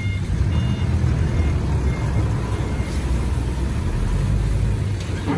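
A heavy dump truck's diesel engine rumbling as the truck drives past close by.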